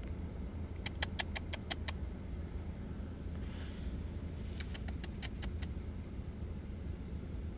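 Steady low background rumble with two quick runs of sharp, high clicks, about seven in a second each, one about a second in and one near the middle.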